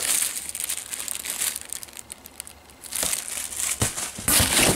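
Plastic wrap and bubble wrap crinkling as it is handled. The rustling is dense and crackly, eases off a little past halfway, then picks up again and is loudest near the end.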